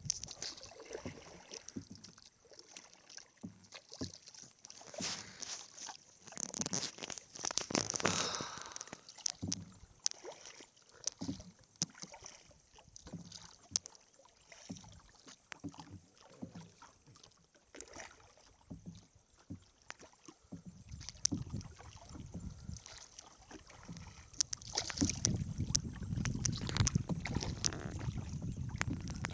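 Water splashing and lapping against the hull of a small wooden boat as it moves across the reservoir, in irregular small splashes. Near the end, wind buffets the microphone with a low rumble.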